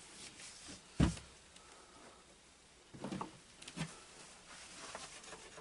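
A few scattered knocks and clunks of parts or tools being handled, the loudest about a second in, with smaller ones around three and four seconds in.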